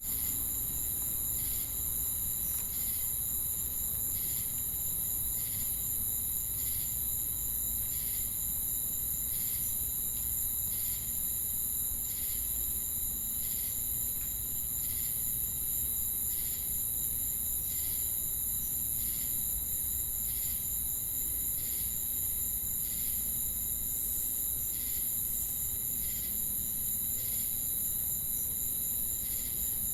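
Crickets and cicadas calling together: a continuous, very high-pitched shrill with steady high tones underneath, and a separate chirp pulsing about one and a half times a second, over a faint low rumble.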